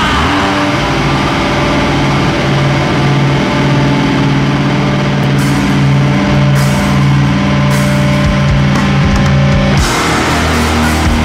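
Hardcore punk band recording, loud: electric guitar and bass hold sustained chords with drums, with cymbal hits coming in about halfway and a switch to a new riff near the end.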